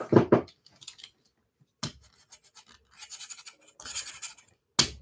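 A short breathy laugh, then faint scratchy rustling with a single click and a quick run of light ticks.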